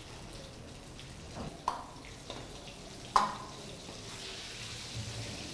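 Boneless chicken pieces deep-frying in hot oil in a kadai, a steady sizzle. Twice, about a second and a half apart, the steel ladle clinks sharply against the kadai.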